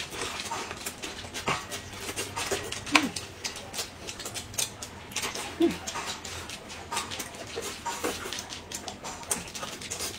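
Close-up eating sounds: quick wet clicks of chewing and lip-smacking. Twice, a short falling hum of a voice.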